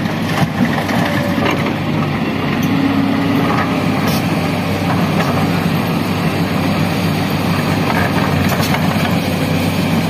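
SANY tracked excavator's diesel engine running steadily while the machine swings its empty bucket back from the dump truck and reaches into the soil pile, with a few short knocks.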